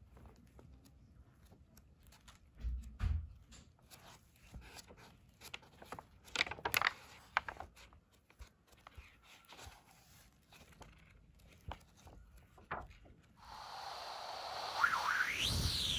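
Paper rustling with small handling knocks and scrapes. Near the end, a louder whoosh with a sweeping, rising pitch.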